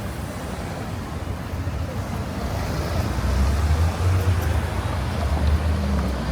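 City street traffic, with a low engine rumble from a passing vehicle that grows louder about halfway through.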